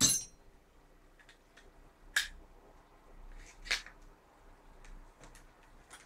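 Small metal parts and tools clicking and clinking while a WE M4 gas-blowback airsoft rifle is assembled: a sharp clink with a short metallic ring at the start, two more clear clicks about two and three and a half seconds in, and faint ticks between.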